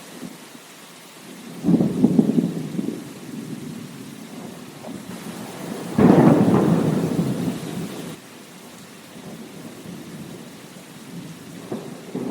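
Steady rain with rolls of thunder: a rumble about two seconds in, a louder one starting suddenly about six seconds in and fading over two seconds, and a fainter one near the end.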